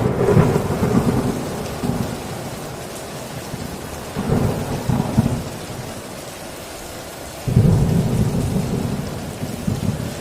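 Heavy rain falling steadily on a tin roof, with thunder growling three times: a rumble breaks in suddenly at the start and fades, another rolls in about four seconds in, and a third breaks suddenly about seven and a half seconds in.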